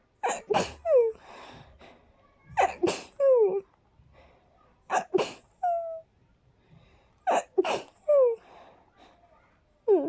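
A person sneezing in a fit, four airy sneezes about two and a half seconds apart, each a sharp burst trailing off into a short falling vocal sound, with soft breathing in between. The sneezes are set off by dust from cleaning.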